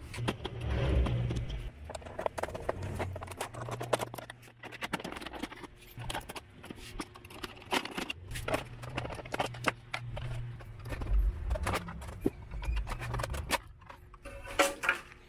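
Irregular clicks and knocks of a printer's plastic casing being taken apart: screws, clips and panels being worked loose. Music plays underneath.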